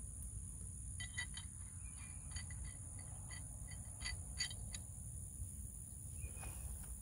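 Light metallic clicks and clinks, irregular and spread over a few seconds, as a tow strap's hook and hardware are fastened to the front of a zero-turn mower. Under them are a low wind rumble and a steady high insect buzz.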